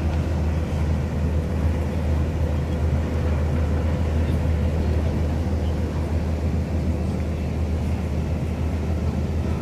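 Steady low rumble of harbour-front ambience, with a faint steady hum running through it and no distinct events.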